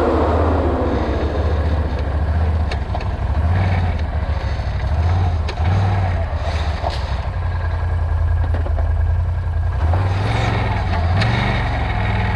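Vehicle engine running while driving off-road, its pitch rising and falling as the throttle is opened and eased, with rises about four, six and ten to eleven seconds in. A few faint knocks come over the engine.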